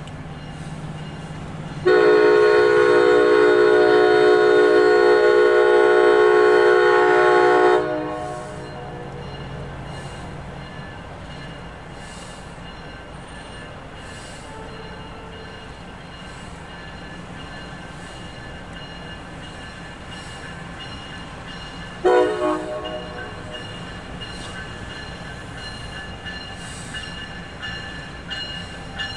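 Locomotive air horn sounding one long blast of about six seconds, starting about two seconds in, then a short blast near the end, over the low steady rumble of a train.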